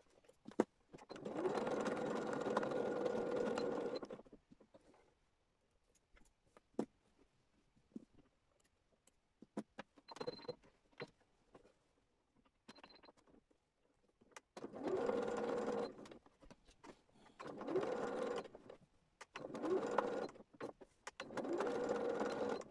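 Electric domestic sewing machine stitching through patchwork fabric. It runs steadily for about three seconds, then falls quiet for roughly ten seconds with small clicks of handling and two short high beeps. Near the end it starts and stops in four short runs as the fabric is turned.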